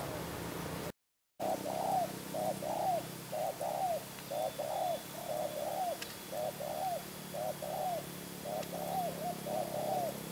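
Spotted doves cooing: short, throaty, arched coos in quick groups of two or three, repeating all through. There is a brief silent break about a second in.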